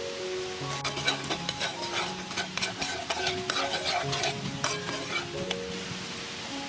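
Snails being stir-fried in a pan: sizzling, with a utensil scraping and clicking against the pan in a busy run that stops about five seconds in. Background music plays throughout.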